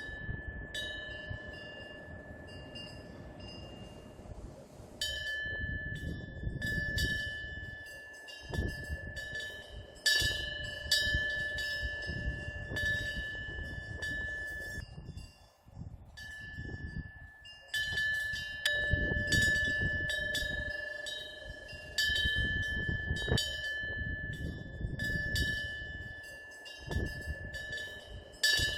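Korean temple eave bell (pungyeong) swinging in the wind, its clapper striking it at irregular intervals in clusters, with a clear ringing tone that hangs on between strikes. A low rumble of wind on the microphone rises and falls beneath it.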